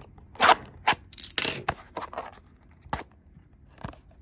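Trading card pack packaging being torn open by hand: a run of short, irregular rasps and scrapes, the loudest about half a second in, with a sharp click about three seconds in. The packaging is stubborn to open.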